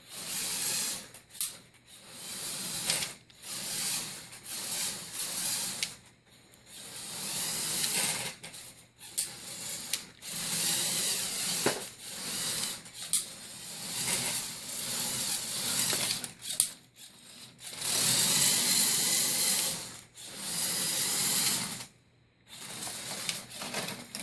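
LEGO Technic electric motors running the gears and plastic tracks of a tracked loader, whirring and rattling in runs of a few seconds that stop and restart repeatedly as it is driven in reverse.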